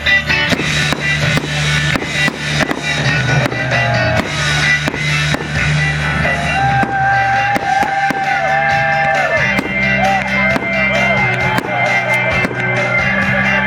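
Loud music with a steady beat; a melody line with bending, sliding notes comes in about halfway through.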